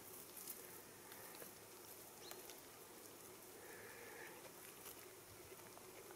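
Faint scattered crackles and rustles of goats nibbling and chewing the needles and twigs of a fir Christmas tree.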